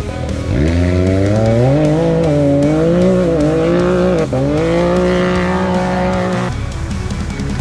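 Off-road racing side-by-side's engine revving hard as it pulls away, its pitch climbing over the first seconds, wavering, dipping briefly about four seconds in, then holding high before cutting off near the end.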